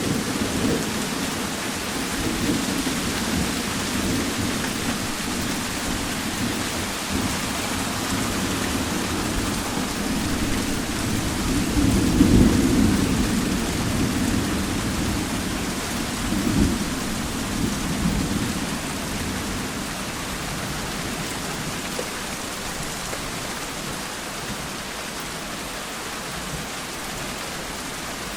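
Steady rainfall with rolling thunder. The low rumble swells loudest about twelve seconds in, returns briefly a few seconds later, then dies away, leaving only the rain.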